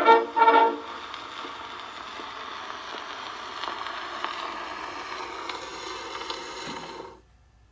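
Last brass band chords of a march, played acoustically on an Edison C-250 Diamond Disc phonograph, end about a second in. The record's surface hiss follows, with a few faint ticks, as the reproducer runs on past the music, and then it cuts off abruptly near the end.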